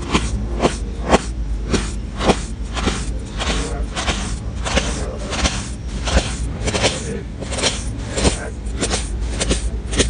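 Knife slicing through packed kinetic sand on a wooden cutting board, a steady run of short scraping cuts at about two a second.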